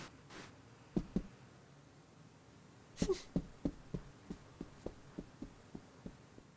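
Soft cartoon footsteps of a cat, about four a second, growing fainter as it walks away, after a brief louder sound about three seconds in. A couple of soft knocks come about a second in.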